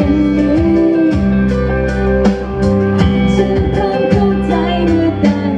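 Live pop song: a woman singing into a microphone over an amplified backing track with guitar and a steady drum beat.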